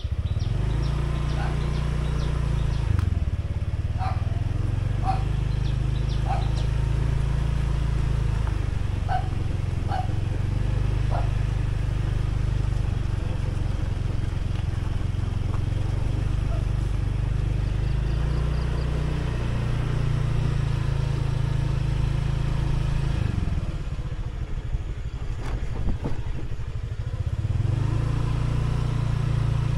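Motorbike being ridden along a road: the small engine runs steadily with road and wind noise, easing off for a few seconds about three quarters of the way through, then picking up again.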